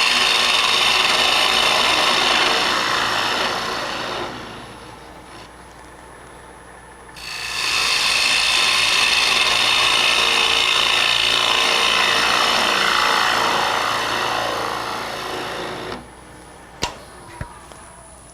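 Turning tool cutting across the face of a spinning hard maple lid on a wood lathe, shaping a shallow dome: two long passes of steady scraping hiss, the first about four seconds, the second about nine, with the lathe running more quietly between them. Two short sharp clicks near the end.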